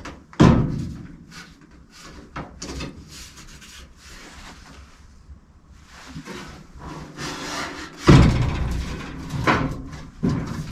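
Knocks and scraping of a steel body repair panel being handled and worked into position on the car. The loudest knocks come about half a second in and again about eight seconds in, with a few more near the end.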